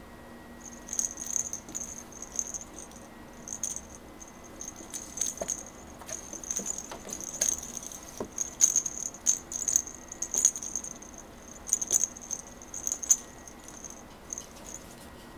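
A Maine Coon cat playing with a plush toy in a wire cage: irregular bursts of light rattling, clicking and jingling as it paws and grabs, starting about a second in and dying away near the end.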